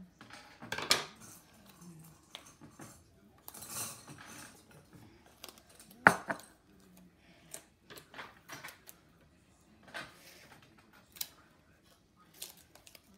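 Craft materials handled on a wooden tabletop: scattered rustles of paper and masking tape and light clicks. About six seconds in, the metal scissors are set down with a sharp clack, the loudest sound.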